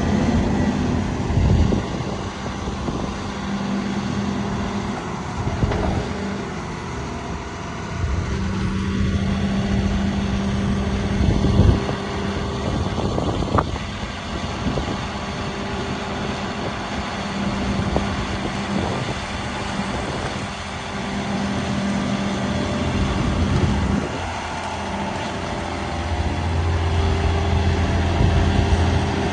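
Diesel engine of a John Deere 250G excavator running, its note shifting up and down with the load, with a few sharp knocks along the way.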